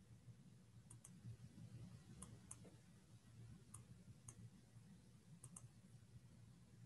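Faint computer mouse clicks, in pairs about four times, over quiet room tone with a low hum.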